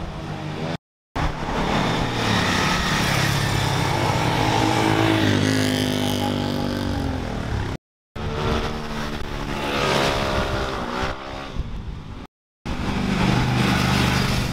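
Fast sport vehicles passing close by at speed, engines running hard, in three short stretches split by two abrupt silent cuts. In the first two, the engine note falls in pitch as the vehicle goes past.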